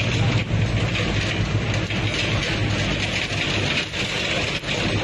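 Excavator running, a low diesel hum under a steady metallic clatter with scattered clanks.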